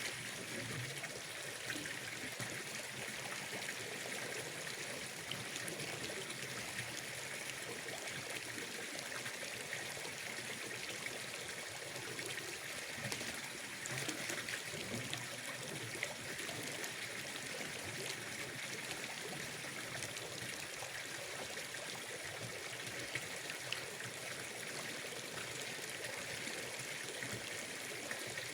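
Steady, gentle running water trickling without a break, with a constant high hiss and many faint scattered ticks.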